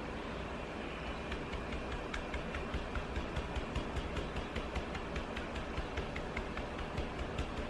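Stencil brush dabbing paint through a stencil onto a wooden board: a run of light, irregular taps, a few per second, over a steady low hum.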